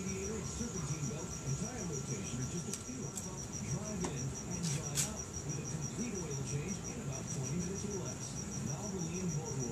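A cricket chirping steadily in a rapid, even run of high pulses. A few sharp clicks come around the middle, over a low, wavering background murmur.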